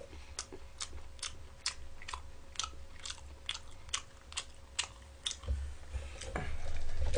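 A person chewing a mouthful of pizza close to the microphone, with a steady rhythm of short crunchy chews a little over two a second. Low thumps join in near the end.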